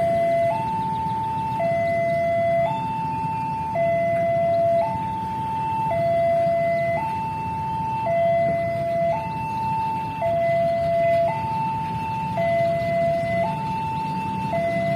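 Railway level-crossing warning alarm sounding a steady two-tone signal, alternating evenly between a higher and a lower note, each held about a second, warning that a train is approaching and the crossing barriers are down.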